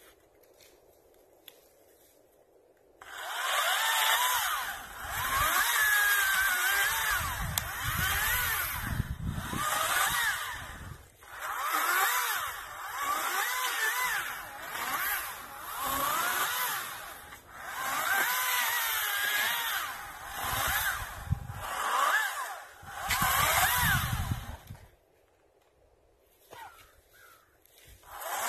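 A 40-volt Greenworks DigiPro battery chainsaw starts about three seconds in and runs through a string of limbing cuts, its motor whine rising and falling in pitch with each cut. It stops a few seconds before the end, then starts again just at the end.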